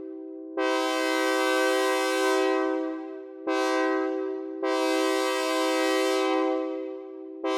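Synthesized train horn chord sounding in blasts: a long blast beginning about half a second in, a short one around three and a half seconds, and another long one from about four and a half seconds, with a new blast starting just before the end. Each blast cuts in sharply on the same steady multi-note chord and fades away.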